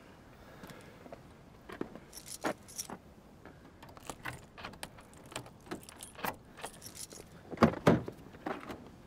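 Objects being handled: a run of light clicks and rattles, with two louder knocks close together near the end.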